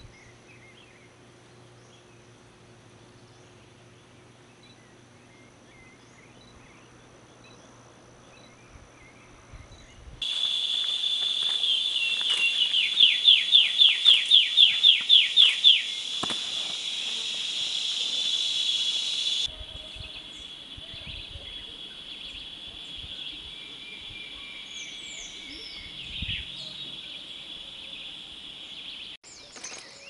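Riverbank warbler song: a loud run of about a dozen quick notes, around four a second, over a steady high insect buzz. Before it come faint scattered bird chirps; after it, softer chirps over the same buzz.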